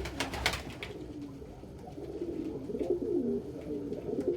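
Domestic pigeons cooing: a run of low, repeated coos that swoop up and down, starting about two seconds in. A few short taps come near the start.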